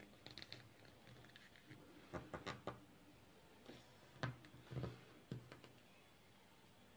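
Faint crinkles and taps of origami paper being folded and pressed flat by hand against a tabletop. They come in short clusters about two seconds in and again between four and five and a half seconds, with near silence between.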